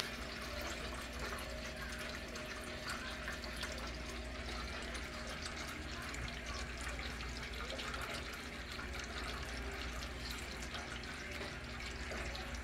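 Kitchen faucet running steadily into a stainless steel stockpot, filling it with water.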